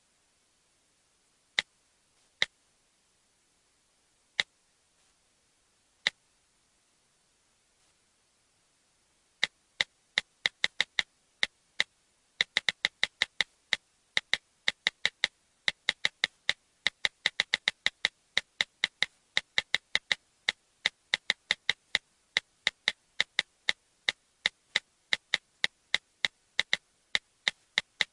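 iPad button clicks, each one short and sharp. A few come several seconds apart at first, then from about nine seconds in they run fast and uneven, several a second.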